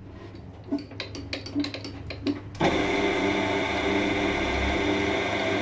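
A few sharp metal clicks and knocks, as of tools being handled. About two and a half seconds in, a metalworking machine's motor switches on suddenly and keeps running steadily.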